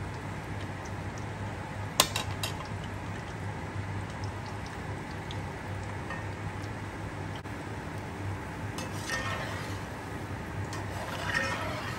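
Kitchen exhaust fan humming steadily while gulab jamun fry in oil. About two seconds in a metal utensil strikes the pan with a sharp clink, and there are a few softer clatters later on.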